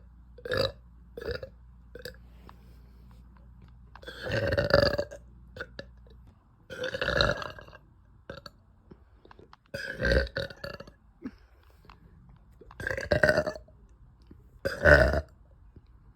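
A woman burping repeatedly: a few small burps near the start, then a long loud belch about four seconds in and four more loud belches every two to three seconds.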